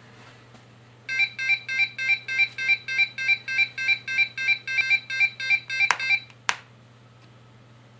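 Arduino alarm clock's electronic buzzer beeping in a fast repeating pattern, about three beeps a second. The snooze button on top is pressed with a click and the beeping stops, and a second click follows half a second later.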